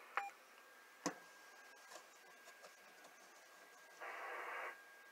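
Last key-press beeps and a click from the AOR AR8600 receiver's keypad, then a sharp click about a second in. A faint, steady high whistle comes through the receiver on upper sideband, with a short burst of hiss about four seconds in.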